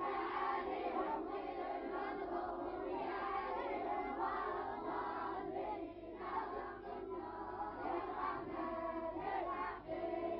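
A group of boys and a man chanting a recitation together in unison, many overlapping voices, with brief breaks about six seconds in and near the end.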